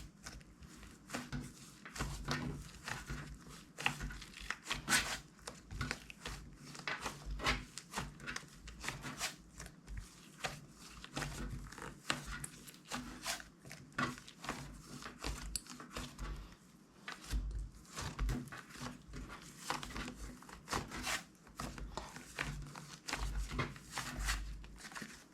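Slime being squished, stretched and mixed by hand, making irregular sticky clicks and crackling pops, several a second, with soft low thuds.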